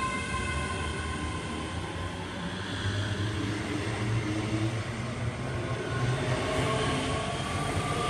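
Class 385 electric multiple unit running past close by: a steady rumble of wheels and carriages on the rails, with an electric whine whose pitch rises near the end.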